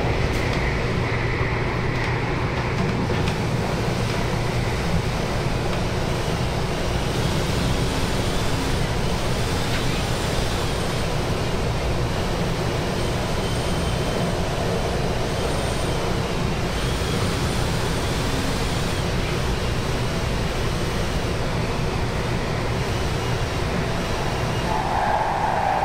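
Steady running noise inside an MTR Tung Chung line A-train (Adtranz-CAF electric multiple unit) car in motion: a continuous low rumble of wheels on rail with a faint high whine that comes and goes. A louder, higher-pitched noise joins near the end.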